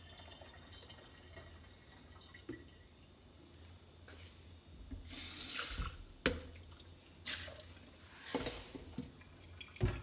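Kitchen tap running in three short spells in the second half, with a couple of sharp knocks in between. Before that, a faint quiet stretch while descaling solution is poured into the plastic water tank.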